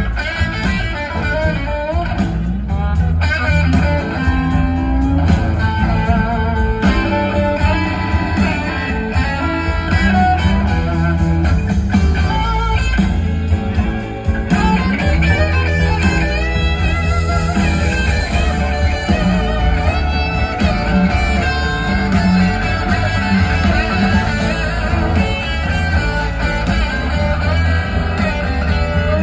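Live blues-rock band playing loudly, an electric guitar lead with bending, wavering notes over bass and drums.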